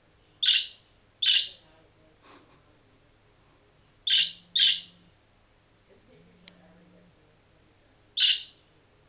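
Budgerigar giving five short, loud single chirps at irregular intervals, two of them in quick pairs, with a small click between the later ones.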